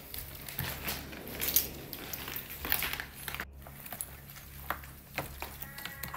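Footsteps crunching over plaster debris and rubble on a floor, with scattered crackles, over a steady low hum.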